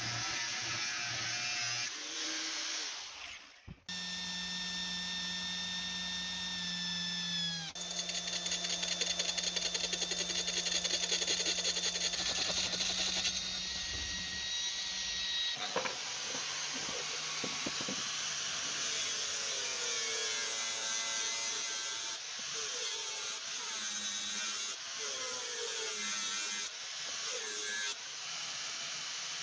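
An angle grinder cuts into steel with a cutoff disc. After a brief gap, a cordless drill runs steadily and bores through the steel blade. In the last part, an angle grinder grinds the blade, its pitch wavering as it bites.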